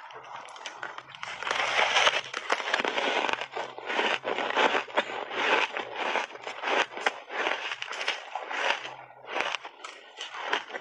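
Close-miked crunching and chewing of powder-coated ice chunks, milk powder and matcha dusted over frozen ice. A big crunching bite comes about a second and a half in, then steady crunches about twice a second.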